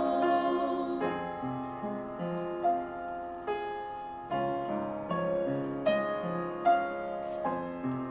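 Piano playing a slow, gentle passage, with chords and single notes struck every half second to a second and left to ring.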